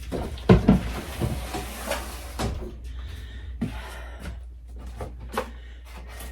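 Jars and food containers being taken off refrigerator shelves and set down on a table: a string of knocks and clatters, the loudest about half a second in.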